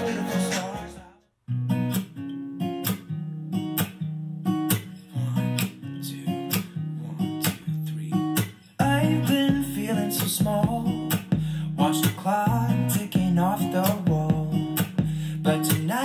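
A song with strummed acoustic guitar, played back through a Bluetooth speaker, the LG XBOOM Go PK7, and recorded with binaural microphones. About a second in it cuts out briefly and starts again from the guitar intro, now through a Sonos One speaker. Deep bass comes in at about nine seconds.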